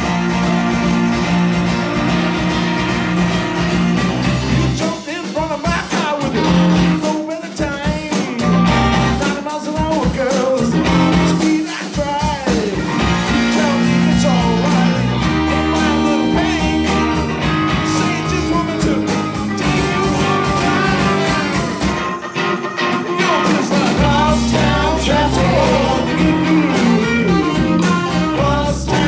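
Live band playing a song: a woman singing over electric guitar and drums.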